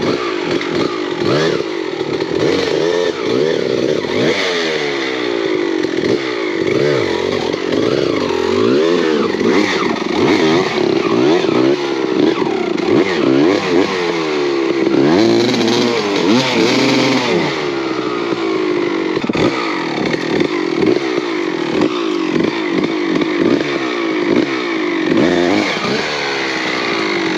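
Dirt bike engine revving up and down over and over as the rider forces it up a steep, rough hill climb, the revs rising and dropping every second or two under heavy load.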